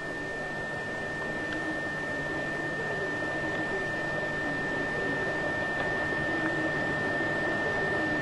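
Steady hiss with a thin, constant high whine, the background noise of an old camcorder recording, with faint wavering tones underneath from about three seconds in.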